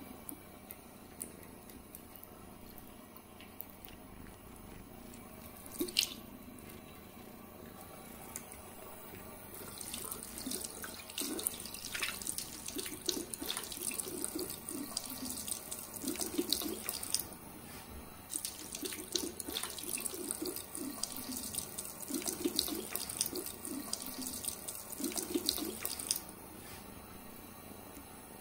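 Water running from a bathroom sink tap into the basin, a steady splashing hiss with a few sharp clicks or knocks.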